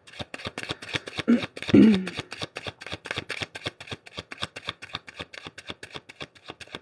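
A tarot deck shuffled by hand, overhand: a fast, even run of card flicks, about eight a second. A brief wordless voice sound with a falling pitch comes just before two seconds in.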